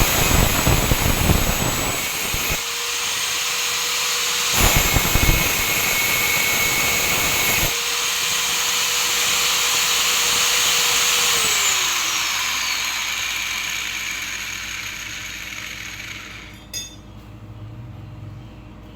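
Handheld power cutter, mounted as a table saw, running at a steady whine and making two loud cuts, the first at the start and the second from about five to eight seconds in. About halfway through it is switched off and spins down with a falling pitch, and a single click follows near the end.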